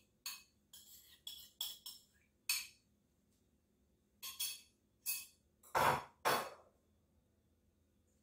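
Kitchen containers and utensils being handled on a countertop: a run of light clicks and clinks, then two louder knocks about six seconds in.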